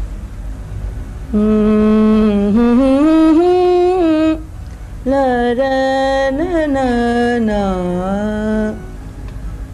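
A woman's voice singing solo and unaccompanied in two slow phrases. The notes are long and held, with ornamented turns and slides between pitches, and there are short pauses for breath between the phrases.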